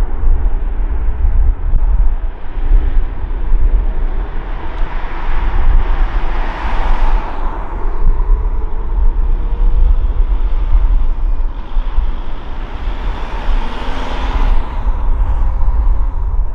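Boeing 777-300's twin GE90 jet engines at takeoff thrust, heard from behind as the airliner climbs away: a deep, fluctuating rumble with a rasping hiss that swells twice.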